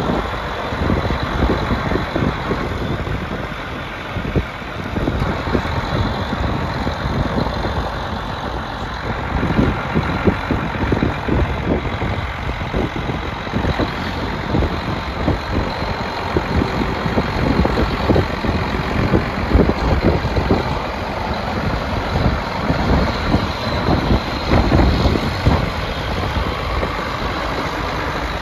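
John Deere 9520T tracked tractor's diesel engine, a 12.5-litre six-cylinder, running steadily as the tractor is driven slowly across gravel and pulled up.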